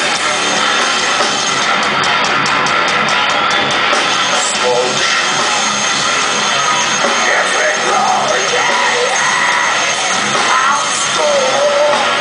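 Live heavy metal band playing at full volume, heard from the crowd: distorted electric guitars, bass and drums, with yelled vocals coming in over them in the second half.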